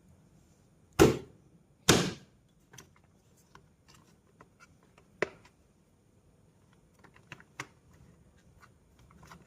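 Metal hand tools clicking and knocking against motorcycle parts: two sharp knocks about one and two seconds in, then a scatter of lighter irregular clicks.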